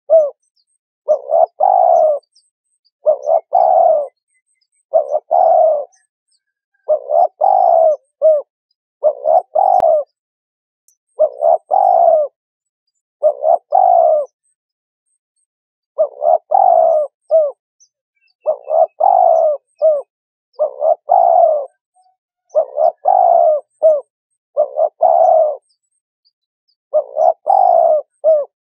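Spotted dove cooing: short phrases of a few falling coo notes, often ending in a brief extra note, repeated about once every two seconds with silent gaps between.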